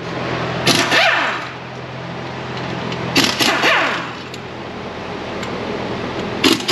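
Cordless impact wrench spinning out the bolts of a rear differential cover in three short bursts, each winding down in pitch as the trigger is let go, over a steady background hum of a shop fan or air conditioner.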